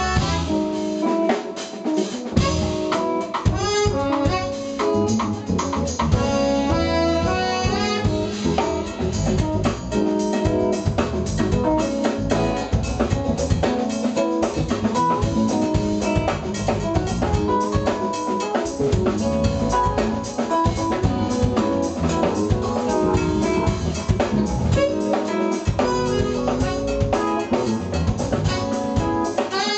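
Live jazz-fusion band playing: a drum kit under a saxophone and trumpet horn section, with electric keyboards and electric guitars.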